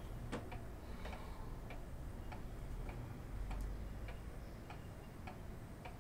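A clock ticking steadily, about three ticks every two seconds, over a low steady room hum.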